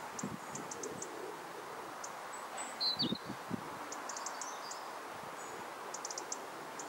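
Outdoor ambience: a steady rush of wind through trees, with small birds chirping in short high bursts throughout and one louder chirp about three seconds in. A few soft low thumps come around the same moment.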